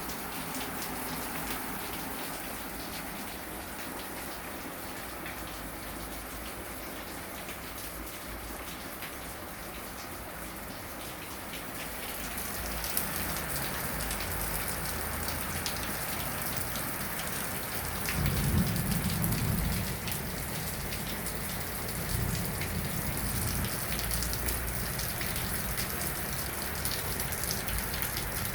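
Steady rain falling, growing heavier about halfway through, with a brief low rumble about two-thirds of the way in.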